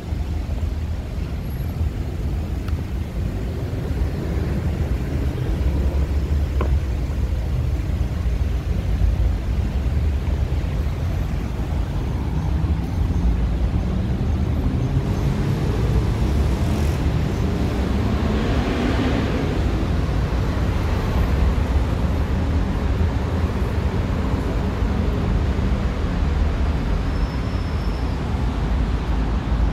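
City street traffic noise: a steady low engine rumble from buses and cars, with a louder rushing swell about halfway through.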